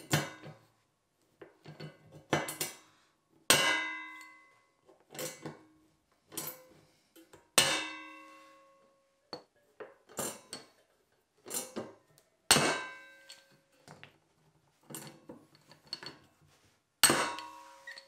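Toptul hand pop-rivet tool being squeezed repeatedly to set blind rivets through seat-belt webbing into a steel square-tube frame: a run of metallic clicks and clacks, with a loud sharp crack about every four to five seconds as each rivet's mandrel snaps off, followed each time by a brief metallic ring.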